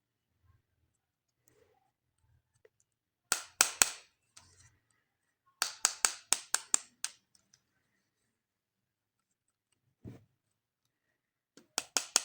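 Runs of sharp clicks and snaps from toys and their packaging being handled: four quick clicks about three seconds in, a faster run of about seven around six seconds, one dull knock near ten seconds, and another quick run of clicks near the end.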